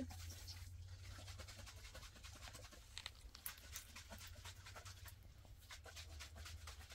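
Faint rustling and many light clicks from handling cloth and small objects, over a steady low hum.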